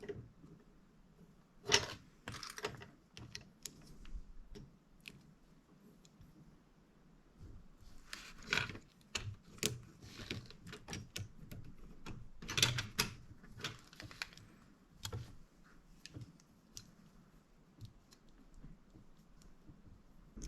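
Small plastic building bricks from an off-brand LEGO-compatible set clicking and rattling as pieces are handled and pressed together, in scattered clusters of light clicks.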